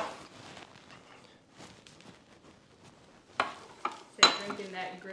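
Quiet, then two short sharp clicks and a brief clatter of things being handled on a work surface, about three and a half to four and a half seconds in, with a faint voice after them.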